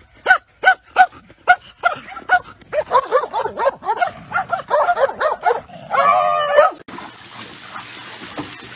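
A dog barks repeatedly, at about two barks a second at first, then in a faster run of higher yapping barks that ends in one longer wavering cry. About seven seconds in it cuts to a steady hiss.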